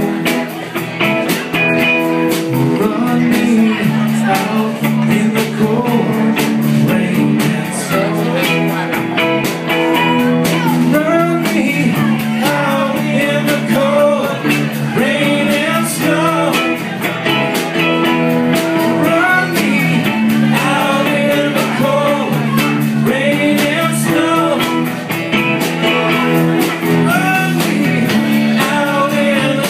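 Live rock band playing an instrumental passage: an electric guitar lead with bending notes over sustained keyboard chords, bass and a steady drum beat.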